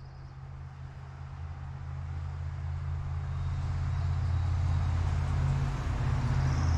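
A motor vehicle's engine rumble and road noise, growing steadily louder as it approaches.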